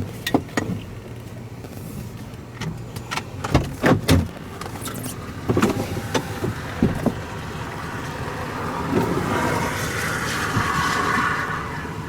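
Vehicle cabin noise: a steady low hum from the vehicle, with scattered knocks and clicks through the first half. A rushing noise builds from about eight seconds in and fades just before the end.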